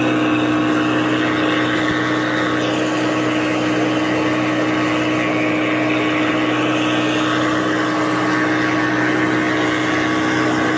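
Boat engine running steadily at one constant pitch, with a rushing hiss over it.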